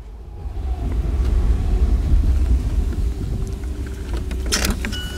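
Car engine and road rumble heard from inside the cabin while driving, growing louder about a second in. A brief rush of noise comes just before the end, then a high steady tone starts.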